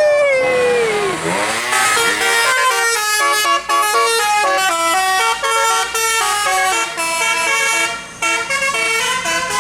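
Bus telolet musical air horn: a long note sliding down in pitch, a short rising sweep, then from about two seconds in a quick tune of short stepped notes.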